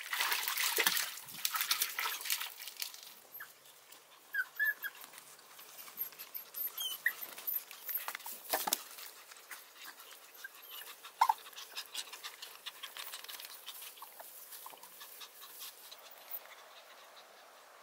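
Puppies splashing as they swim in muddy water for the first few seconds, then scrabbling with their claws over dirt and rock as they climb out. A few short, high whimpers are scattered through.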